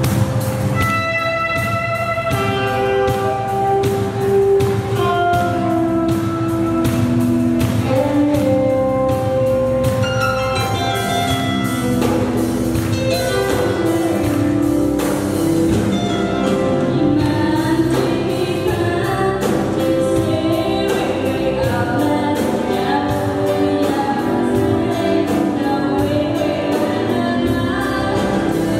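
A live band plays a song on drum kit, electric guitar and keyboard, with a woman singing into a microphone over a steady beat.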